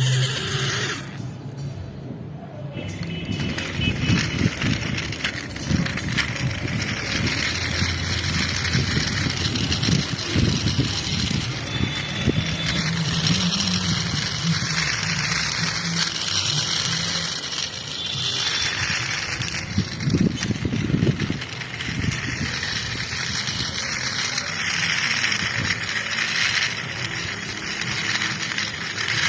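Music playing, with a noisy rattling clatter underneath.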